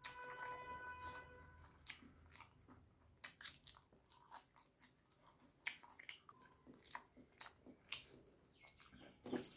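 Close-up mouth sounds of a person chewing rice and curry eaten by hand: soft wet chewing with many short lip-smacking clicks. A steady tone is held for about a second and a half at the start.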